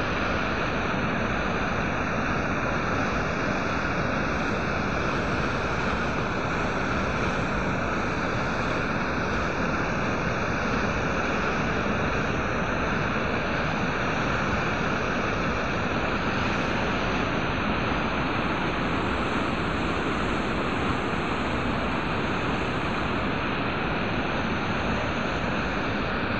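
Muddy floodwater pouring over the edge of a flooded road, a steady, unbroken rush of falling and churning water.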